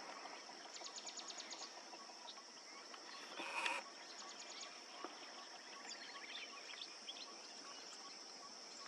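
Faint wild ambience: a steady high insect drone, with birds calling over it in quick ticking trills and scattered notes, one louder call about three and a half seconds in.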